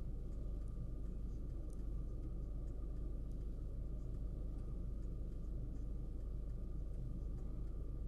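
A steady low rumble with a faint constant hum above it.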